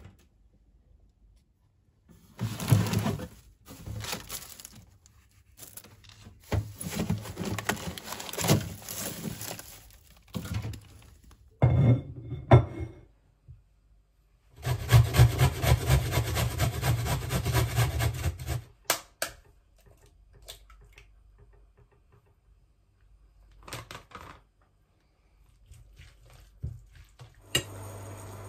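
A run of separate kitchen handling sounds: bursts of scraping and rustling, a longer stretch of quick rhythmic scraping, and a few sharp clicks and knocks. Near the end a steady hiss of a pan starting to sizzle sets in.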